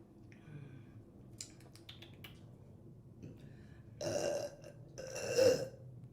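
A woman burping twice, about a second apart. The second burp is longer and louder than the first. A few faint clicks come before them.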